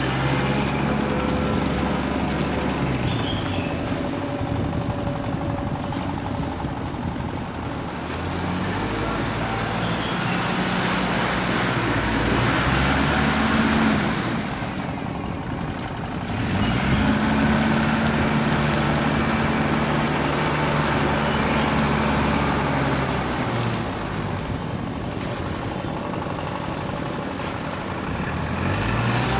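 Kubota compact tractor's diesel engine running under load as it pulls a rotary tiller through paddy mud. Its pitch steps up and down several times, with a sharp drop about two thirds of the way in.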